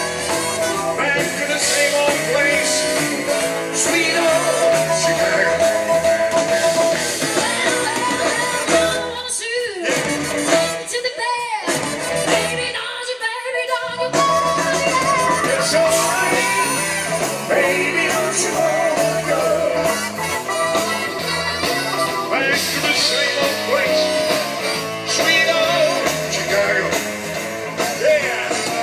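Live band music with singing, in a blues-rock style over a steady beat. About nine seconds in, the bass and low end drop away for a few seconds, then the full band comes back.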